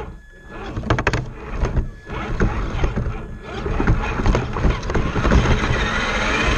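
Scale RC rock crawler driving, picked up by a camera mounted on the truck: electric motor and drivetrain running, with many irregular clicks, knocks and rattles from the chassis and body. It grows louder toward the end.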